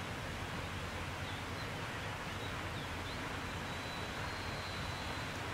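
Steady outdoor hiss of wind and water over the low rumble of a passing inland cargo ship, with a few faint, short, high bird chirps.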